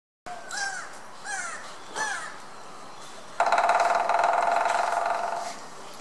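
Lineated woodpecker drumming on dead wood: one rapid, even roll of about two seconds, starting abruptly and fading out. Before it, a bird gives three short calls about two-thirds of a second apart.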